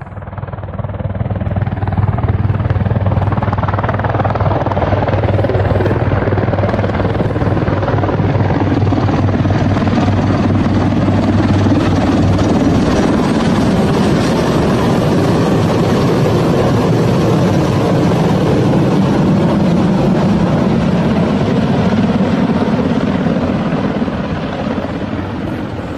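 Mil Mi-26 heavy helicopter flying low overhead, its rotor and turbine engines loud and steady. Preliminary reports say one of its two engines had failed in flight.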